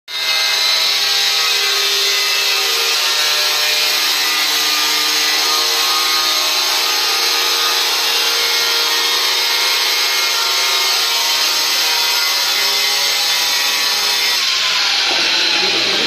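Handheld electric marble cutter running and cutting stone slab: a steady high motor whine over the hiss of the disc, with the pitch dropping near the end as it slows under load.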